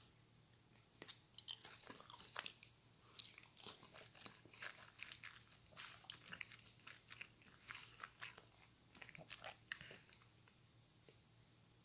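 Faint, irregular wet clicks and smacks of someone biting and chewing a soy-marinated soft-boiled egg.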